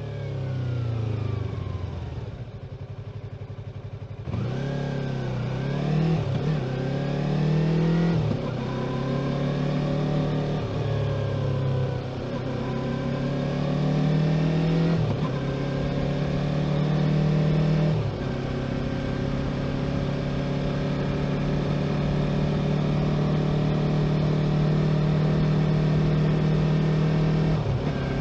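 Yamaha YZF-R3's 321 cc parallel-twin engine heard onboard. It drops back to low revs, then pulls away and accelerates through several upshifts, the pitch climbing and dipping at each change. It then settles into a steady cruise.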